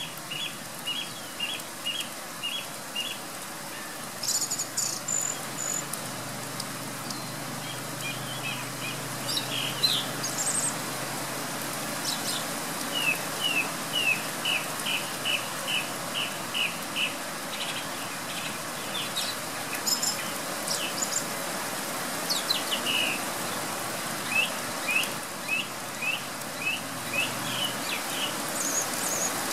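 Song thrush singing: phrases of short, sharp notes, each repeated several times in quick runs, with pauses between runs. Steady pouring rain hisses underneath.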